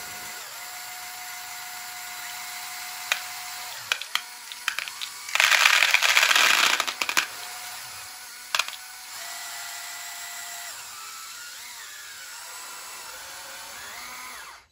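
Small electric motors of a radio-controlled Lego Technic excavator whining as the arm and bucket are worked, starting and stopping, with scattered plastic clicks. Near the middle, marbles rattle loudly in and out of the bucket for about two seconds.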